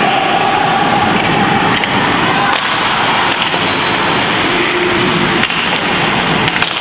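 Ice hockey play in an indoor rink: a steady wash of arena noise with several sharp clacks of sticks on the puck and ice.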